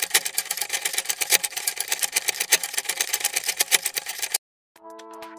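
Rapid ticking sound effect of a rolling number counter, about a dozen clicks a second, which cuts off suddenly near the end. Electronic music with held chords and a beat begins just after.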